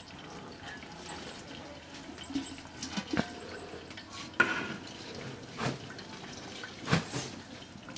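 Chicken curry gravy bubbling in a pot with a steady wet hiss, broken by about five sharp knocks.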